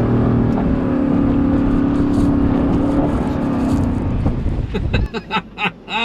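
Ford Bronco's engine running steadily under load while driving through a snowdrift, over a rough haze of tyre and snow noise. The sound cuts off suddenly about five seconds in, followed by a few short clicks.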